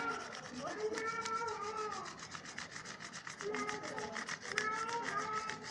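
Pencil lead rubbed rapidly back and forth over a paper page as it is shaded, a scratchy scraping made of many quick short strokes.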